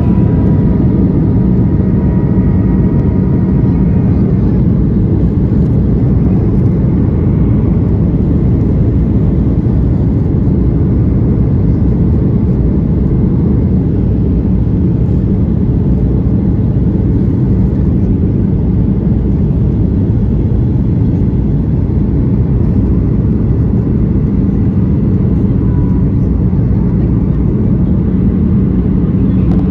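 Boeing 737-800 cabin noise from a window seat over the wing: the steady roar of the CFM56 turbofan engines and airflow, with a low hum beneath it, while the jet is on approach with flaps extended. A few faint higher tones fade out about four seconds in.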